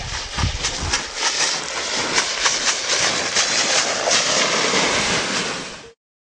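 A board sliding fast down a loose volcanic gravel slope: a continuous gritty scraping and rattling with many small crackles of stones, and wind buffeting the microphone at first. It cuts off abruptly near the end.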